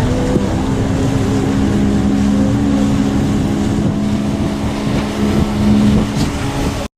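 Motorboat engine running steadily, with wind on the microphone; the sound cuts off abruptly near the end.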